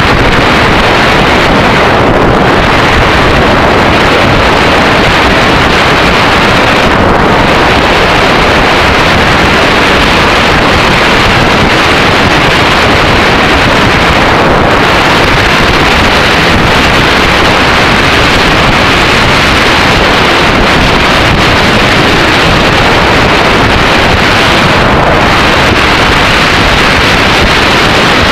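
Loud, steady wind rush buffeting the microphone of a Yamaha XT600E on the move at cruising speed, mixed with the motorcycle's running noise.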